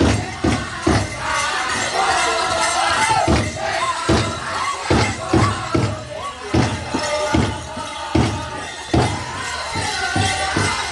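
Pow wow drum group: a large shared drum struck in a steady beat about two strokes a second, with singers carrying a high, wavering song over it. The beat thins for a moment about two seconds in while the singing goes on.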